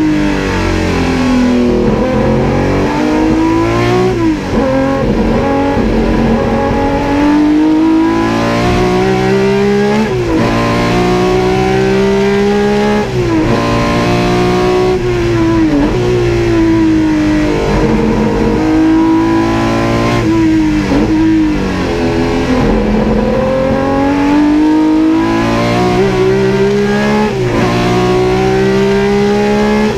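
BMW M1 Procar's straight-six racing engine under hard acceleration, heard from inside the cockpit. Its pitch climbs for a few seconds, then drops sharply at each upshift, about six times.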